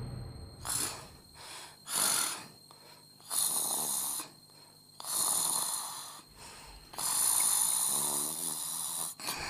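A man snoring in his sleep, about five snores with short pauses between them, the later ones drawn out longer.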